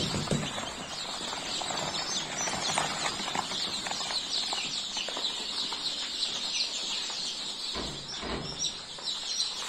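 A large flock of newly hatched chicks peeping all at once, a dense chorus of high, short chirps. There is a dull low bump about eight seconds in.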